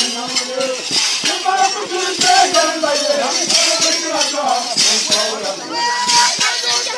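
Shaken metal rattles jingling in rough bursts about once a second, under a crowd of voices singing and calling. A held whistle-like tone joins near the end.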